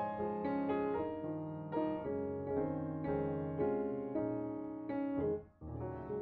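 Soft background piano music, a steady run of notes that ring and fade; it drops out for a moment about five seconds in, then resumes.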